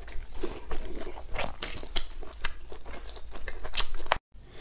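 A person chewing food close to a lapel microphone: irregular wet smacks and small crunches. The sound cuts off abruptly near the end.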